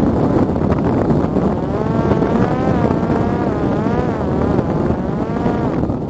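Constant wind rushing on the microphone. From about a second and a half in, the Parrot Disco's electric motor and pusher propeller drone over it with a pitch that wavers up and down, stopping just before the end.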